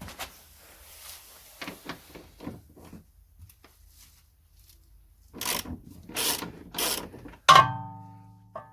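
Ratchet wrench with a socket working a rear shock absorber mounting bolt: a few faint clicks, then three ratcheting strokes about five seconds in, followed by a sharp metal clang that rings for about a second.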